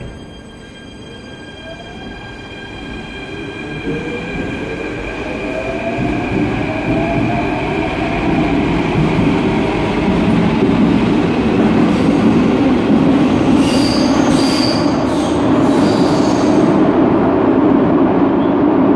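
Athens Metro second-generation electric train pulling out of an underground station: the traction motors whine, rising in pitch as it accelerates, under a rumble that grows louder as the cars pass. Short high-pitched wheel squeals come about three-quarters of the way through.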